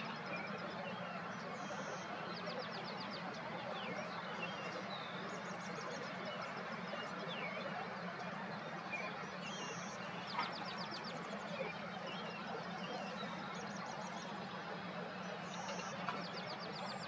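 Several small birds singing outdoors: short high chirps and quick trills, repeated again and again, over a steady low hum and a wash of background noise.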